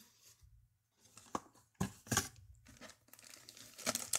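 Cardboard kit box being opened by hand: paperboard lid and flaps rustling and scraping in a run of short strokes that start about a second in.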